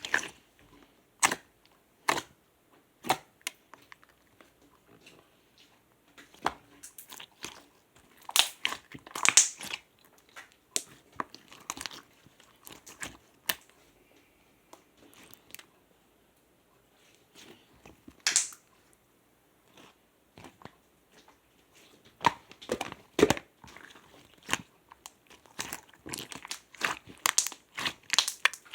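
Clear slime being squeezed and pressed by hand, giving irregular sticky clicks and pops. The pops come in clusters about a third of the way in and again near the end, with a quieter stretch between.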